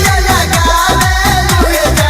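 Electronic dance music with a steady beat and repeated bass notes that slide downward in pitch.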